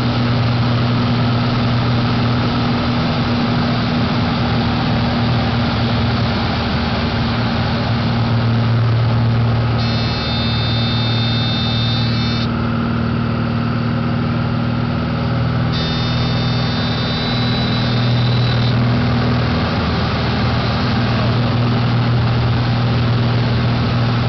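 Single-engine light aircraft's piston engine and propeller running steadily, heard from inside the cockpit. A high steady warning tone sounds twice, about ten seconds in and again about sixteen seconds in, each lasting two to three seconds.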